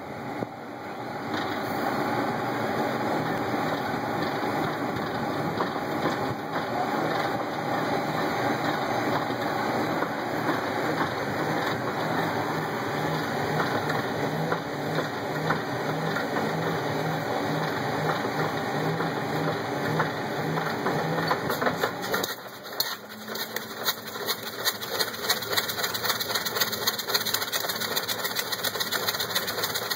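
Douglas DC-4's number 2 radial engine being burped: turned over to clear oil, with parts of its bottom ignition taken out. A steady mechanical running noise with a slow low pulsing, and about 22 seconds in it changes to a fast, uneven clatter.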